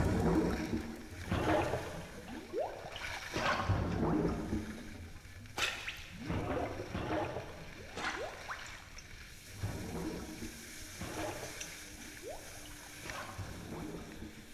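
Skis hissing and scraping over groomed, packed snow in a run of turns, one swish about every second or so, with a few short squeaks from the edges.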